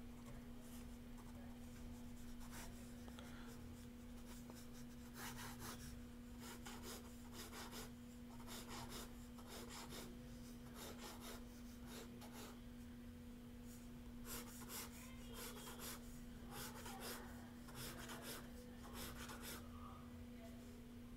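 Ink pen scratching short strokes on sketchbook paper: a few strokes at first, then a quick run of them from about five seconds in until near the end, with a faint steady hum underneath.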